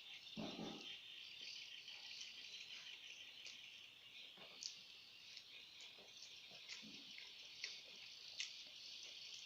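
Faint eating sounds, chewing with a short slurp-like noise about half a second in and scattered mouth clicks, from someone eating noodles and chicken. Under them runs a steady high-pitched chirring hiss.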